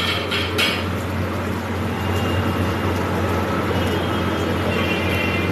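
A motor vehicle's engine running steadily with road noise. A few short sharp taps come in the first second.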